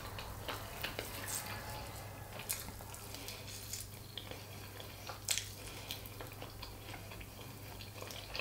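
Eating sounds: scattered soft wet clicks and smacks of chewing and of fingers picking apart a piece of fish, with one sharper click about five seconds in, over a steady low hum.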